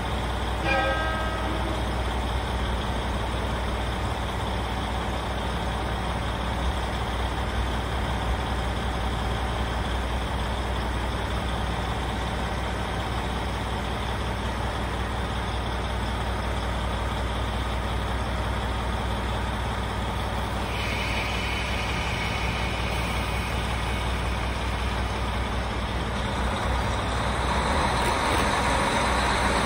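KiHa 40 diesel railcar's engine idling with a steady low hum, then running louder near the end as the railcar starts to pull away. A brief clear tone sounds just under a second in, and a higher hiss joins about two-thirds of the way through.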